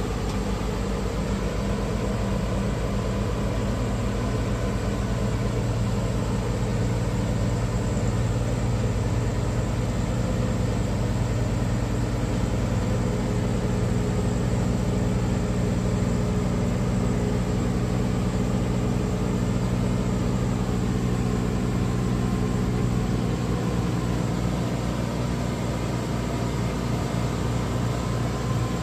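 Car ferry's engine running steadily under way: an even, low hum with a haze of noise over it.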